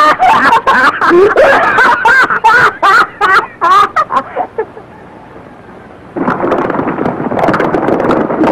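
Hearty laughter from a man and a girl on an old film soundtrack, dying away about four seconds in. After a short lull, a rapid patter of horses' hooves starts about six seconds in.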